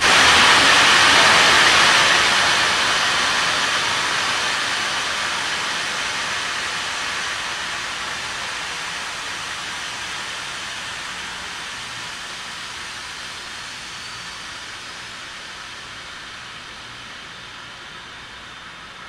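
Loud hiss of gas venting at the Falcon 9 launch pad. It starts abruptly and fades slowly over the following fifteen seconds or so.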